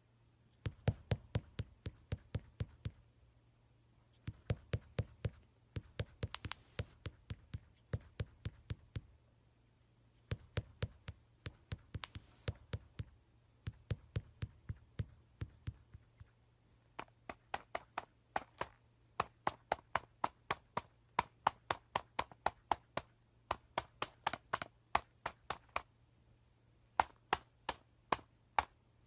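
Sharp taps or knocks in quick runs of about five a second, coming in bursts of a few seconds with short pauses between.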